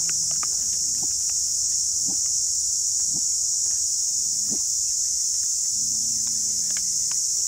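Insects drone steadily at a high pitch throughout, over light clicks and taps of a spoon against a metal pan as salt is shaken in and stirred.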